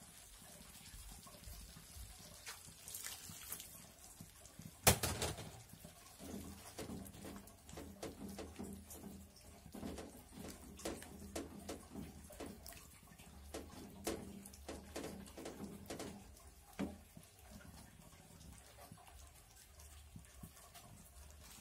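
Silicone spatula stirring pak choy through a thin, bubbling sauce in a wok: wet sloshing and irregular small ticks and pops, with one sharp knock about five seconds in.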